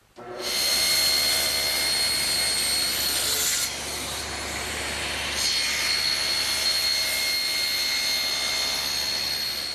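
Table saw with an ordinary blade cutting a deep mortise slot into the end of an upright wooden stile: a loud, steady whine and sawing noise that starts abruptly just after the beginning and eases off for a couple of seconds midway.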